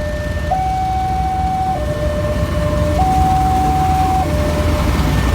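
Two-tone warning siren alternating steadily between a low and a high note, each held about a second and a quarter, over a constant low rumble.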